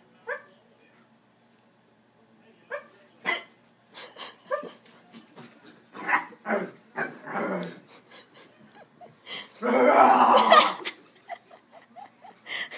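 Pet pug barking in play, in scattered short calls, some dropping in pitch, with a louder, longer burst about ten seconds in.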